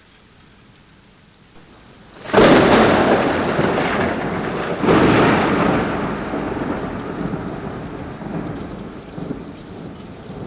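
Thunderstorm: steady rain, then two loud claps of thunder about two and five seconds in, each rumbling away slowly.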